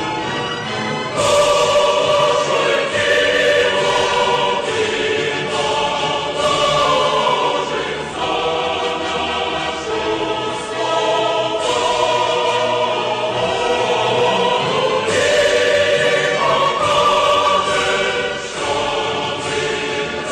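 Choral music: a choir singing slow, held notes that change every second or two, growing louder about a second in.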